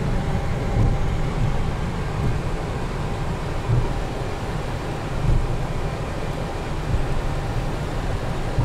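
Flight-deck noise of a Boeing 737NG taxiing at low speed: a steady low rumble and hiss from the idling engines and cockpit airflow, swelling slightly now and then.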